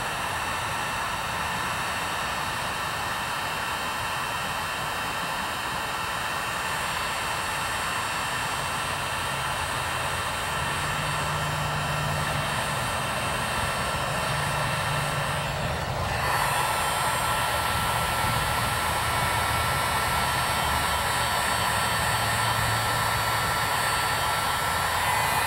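Electric heat gun running steadily, its fan blowing with a high whine, as it shrinks heat-shrink wire connectors. The sound dips for a moment about two-thirds of the way through, comes back a little louder, and cuts off right at the end.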